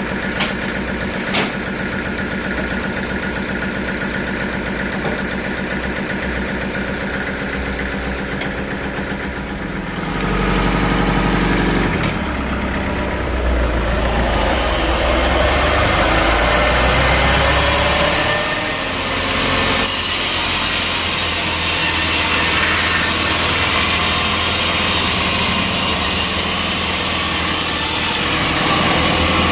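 Sawmill machinery running steadily, with a few sharp clicks in the first two seconds. About ten seconds in it grows louder with a deep rumble, then a broad hiss builds and holds, as the saw works through a log.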